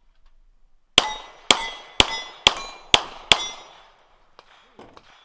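Six rapid 9mm shots from a Glock 17 pistol, about half a second apart, each with a metallic ring of steel plates being hit.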